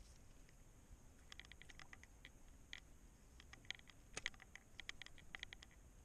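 Faint, quick, irregular clicks and ticks from a baitcasting fishing reel and rod being handled and reeled, over a low background hiss. The clicks come in a run from about a second in until near the end, with the sharpest about four seconds in.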